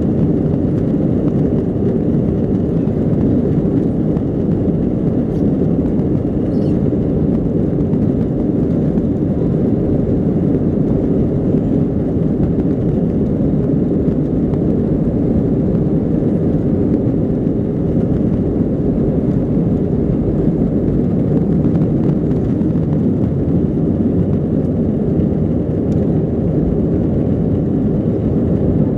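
Airbus A320-200's jet engines at takeoff thrust, heard from inside the cabin: a loud, steady low roar through the takeoff run and into the initial climb.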